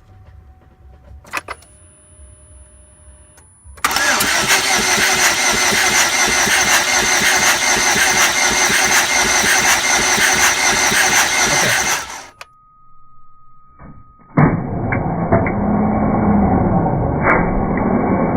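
A 2007 Chevrolet HHR's engine being cranked by the starter for about eight seconds without catching, then, after a short pause, cranked again. The engine cranks but will not start after a valve job with new valves, guides and timing chain.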